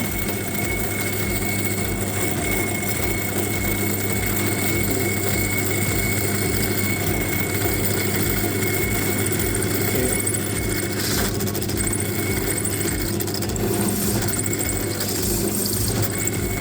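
Bench drill running steadily with a hole saw fitted, a constant motor hum, as the hole saw is fed slowly up and down into an acrylic sheet to cut a circle.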